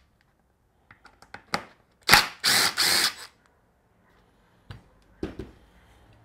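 Cordless power driver spinning for about a second, in two or three short runs about two seconds in, backing screws out of a circular saw's plastic clamshell housing. A few light clicks and knocks from handling the parts come before and after.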